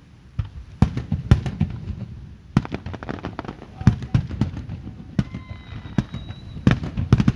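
Aerial firework shells bursting, a fast, irregular string of sharp bangs, at times several a second. A brief high steady whistle sounds a little past the middle.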